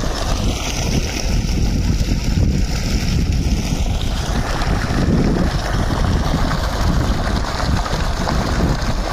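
Water gushing steadily from a plastic pipe outlet and splashing and churning into a pool, with wind buffeting the microphone.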